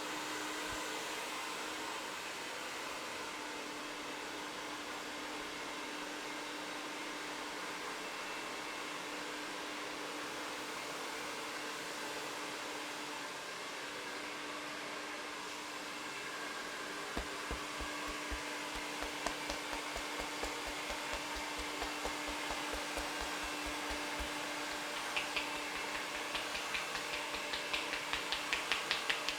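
Steady whirring of a small electric motor with a faint hum, switched on just before. From a little past halfway a regular low pulsing joins it, and near the end sharp ticks come faster and faster.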